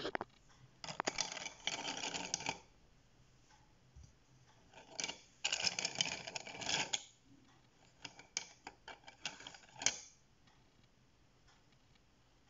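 Wooden coloured pencils clattering against one another and the cup as a hand rummages through them and pulls some out, in three spells of rattling clicks.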